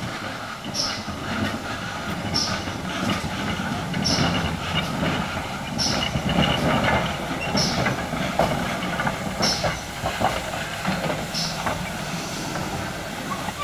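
GWR 4575-class 2-6-2 tank locomotive No. 5552 running slowly as a light engine, its steam chuff mixed with a rumble of wheels on rail. A short high squeak comes round about once every two seconds, and the gap between squeaks grows as the engine slows.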